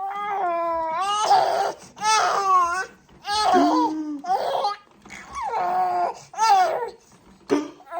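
A young child crying: a run of high-pitched wails, each up to about a second long, with short breaks between them.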